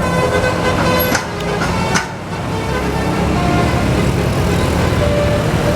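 Bus 'telolet' multi-tone horn playing short notes in the first second, over the steady low running of a bus engine, with two sharp clicks about one and two seconds in and a couple of brief horn notes later.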